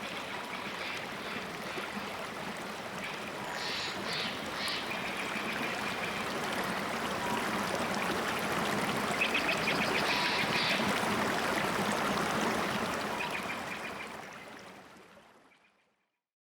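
A rushing forest stream, with short bursts of high bird chirps over it a few times. The water sound swells, then fades out near the end.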